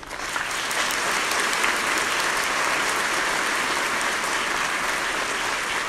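Audience applauding, building quickly at the start and then holding steady.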